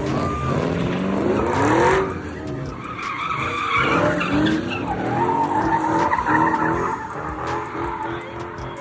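A car engine revving up and down as its tyres skid and squeal in a slide, as in drifting or donuts.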